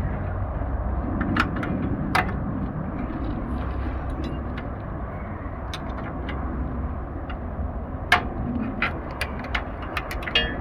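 Scattered sharp metallic clicks and clinks, the loudest about two seconds in and again about eight seconds in, over a steady low hum: hand tools working on the engine's bolts.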